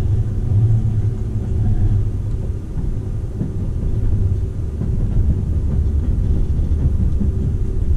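Running noise of a Seibu 001 series Laview train heard inside the passenger cabin: a steady low rumble of the wheels on the track as the train pulls into a station.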